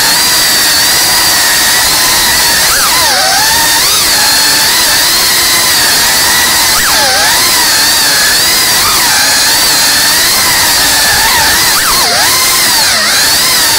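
FPV drone's brushless motors and propellers whining, the pitch wobbling up and down with the throttle and dropping sharply and springing back several times.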